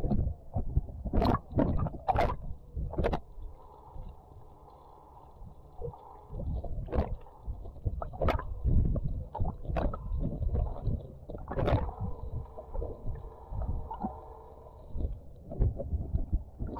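Water sloshing and splashing around a camera held half under the surface, muffled and low while it is submerged, with sharp splashes now and then as it breaks the surface.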